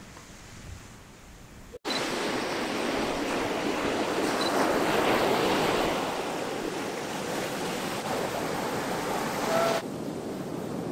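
Sea surf washing onto a sandy beach, a steady rushing noise that starts suddenly about two seconds in and eases a little near the end. Before it there is only a faint outdoor hiss.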